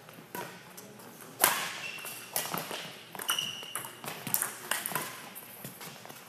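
Badminton racket strokes on a shuttlecock: sharp cracks at irregular intervals, the loudest about a second and a half in, with short high squeaks of shoes on the court floor in between.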